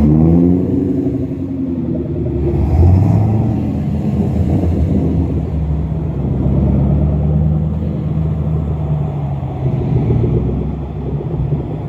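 Road traffic: car engines running close by, one rising in pitch as it accelerates in the first second or so, then a steady engine drone.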